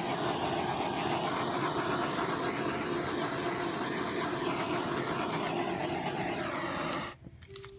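Small handheld torch burning with a steady hissing flame as it is passed over wet acrylic pour paint to heat and smooth the surface; the flame cuts off suddenly about seven seconds in.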